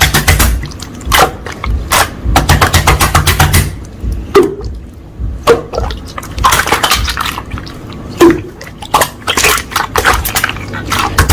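Slime being squeezed and pressed by hand: wet squishing with bursts of rapid crackling clicks, easing off briefly in the middle.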